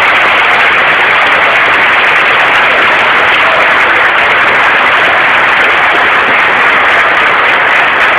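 Large football crowd in a stadium, a loud, steady roar of thousands of voices with no breaks.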